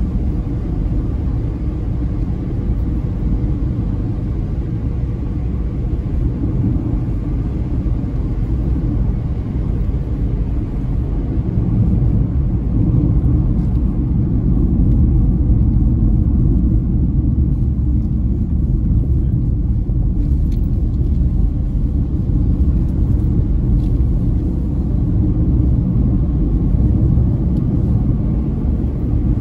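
Steady low rumble of tyre, road and engine noise heard from inside a moving car's cabin, a little louder from about twelve seconds in.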